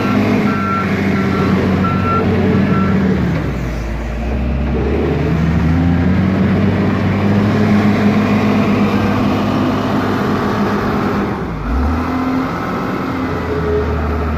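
Diesel engine of a W130 wheel loader running close by while its reversing alarm sounds in short, evenly spaced beeps that stop about three seconds in. The engine then drops and revs up again as the machine drives off, and eases off again near the end.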